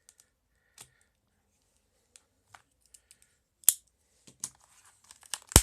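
Folding knife blade being tried against a mat: scattered light clicks and scrapes, with a sharp louder click just under four seconds in and two more near the end.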